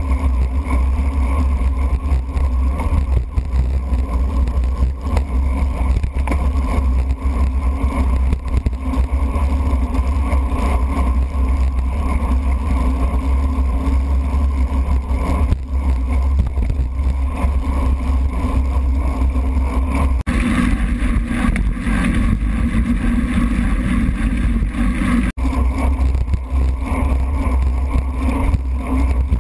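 Steady low, muffled rumble of wind buffeting and road vibration, heard through a GoPro's sealed waterproof housing mounted on a road bike racing on wet pavement. About 20 seconds in the sound turns brighter and hissier.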